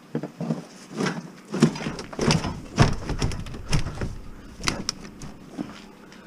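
A series of irregular knocks and clattering thuds, as of hard objects being handled and moved about, the heaviest thud about three seconds in.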